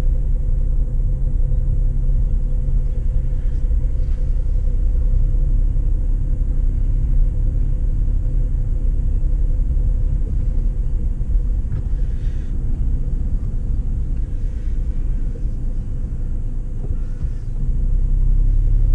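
Low, steady engine and road rumble heard from inside a car's cabin as it drives slowly; the rumble grows louder near the end.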